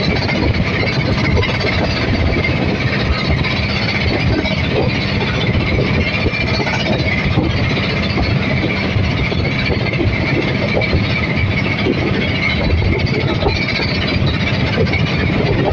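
Motorized outrigger boat's engine running at a steady pace, a continuous drone with a constant high whine riding on it.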